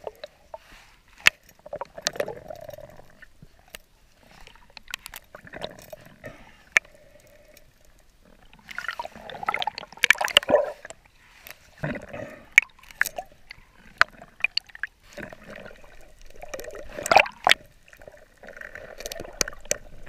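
Underwater water sounds: irregular gurgling and bubbling swells, with scattered sharp clicks throughout.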